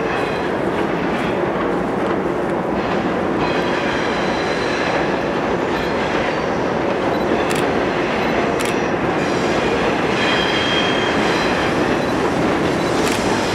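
Two GE B23-7 diesel-electric freight locomotives working steadily as the train rounds a curve: a continuous engine drone and rolling wheel noise, with faint high squeals from the wheels on the curve and a few sharp clanks.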